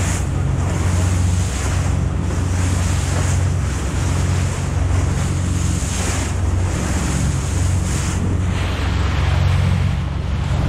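Fishing boat under way while trolling: its engine runs at a steady low hum beneath a continuous rush of water along the hull, with wind buffeting the microphone.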